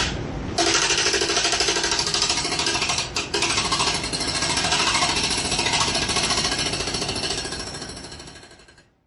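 Jackhammer hammering in a rapid, steady rattle that starts about half a second in, breaks off briefly around three seconds, then fades away near the end.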